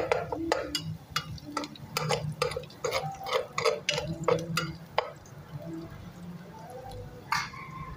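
Metal spoon stirring food in a metal cooking pot, scraping and clinking against the pot in quick, irregular knocks for about five seconds, then a single clink near the end.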